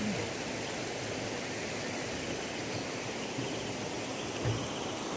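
Steady rushing of a shallow stream running over rocks, with one short low thump about four and a half seconds in.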